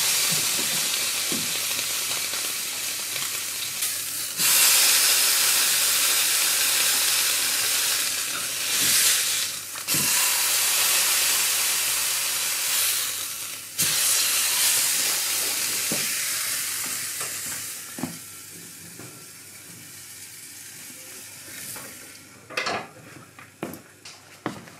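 Block of lean beef searing in a hot skillet for beef tataki: a loud, steady sizzle that jumps louder three times. The sizzle fades over the last several seconds, with a few sharp clicks near the end.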